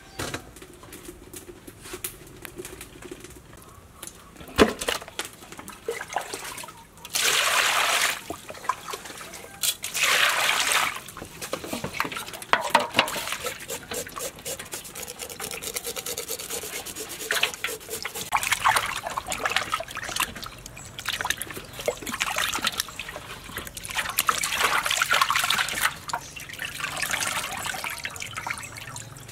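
Water splashing and sloshing in a metal basin as a large river fish is washed and scrubbed by hand, with water trickling and dripping back into the basin as the fish is lifted. One sharp knock about four and a half seconds in.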